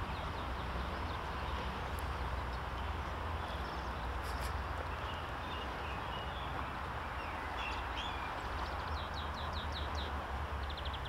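Steady outdoor background noise with a low rumble, and a small bird chirping: a few faint calls, then quick runs of short, high repeated notes near the end.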